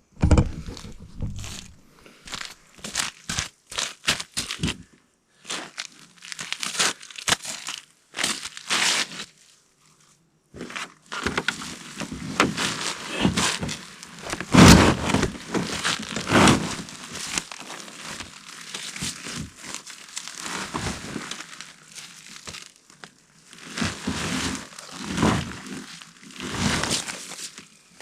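Crinkling and rustling of plastic or similar material being handled, in irregular bursts with short pauses.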